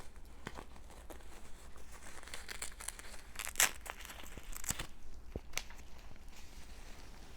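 Packaging being handled and unwrapped: irregular crinkling and tearing rustles, with a sharper, louder crackle about three and a half seconds in.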